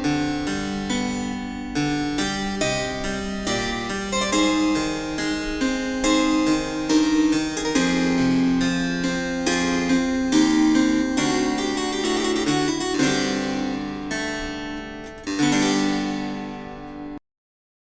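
Classical harpsichord music played through a small Bluetooth speaker, a quick run of plucked notes; it cuts off abruptly to silence just before the end.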